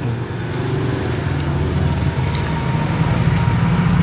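Road traffic: a motor vehicle's engine running close by, a low rumble that grows louder toward the end.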